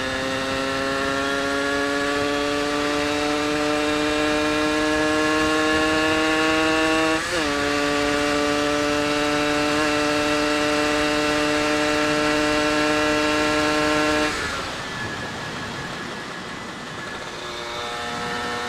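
Suzuki Satria 120 two-stroke single on a racing expansion exhaust, pulling hard in a high gear with its pitch climbing slowly, which the rider finds sluggish to rev up. About seven seconds in the pitch dips briefly at a gear change, then climbs again until the throttle is closed near the end and the engine drops away, under steady wind noise.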